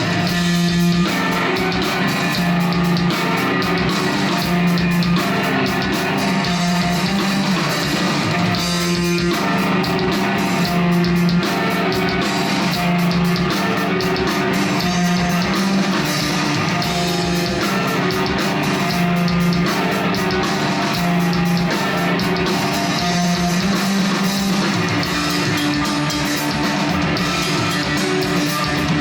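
A stoner rock band playing live: a heavy electric guitar riff over bass and drum kit, with a repeating bass line.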